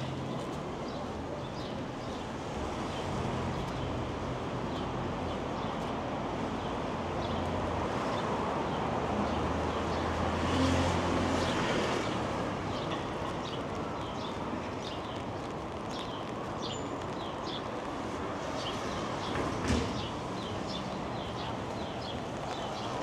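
City street traffic noise: a steady hum of vehicles, one louder vehicle passing about ten seconds in, and light clicking taps scattered throughout.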